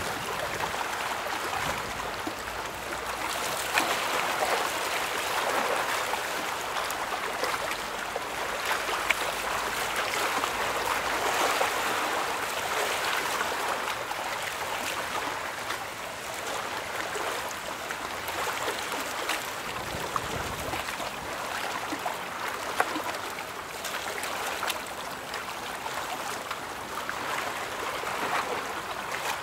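Steady rushing and lapping of river water, with a few faint brief clicks.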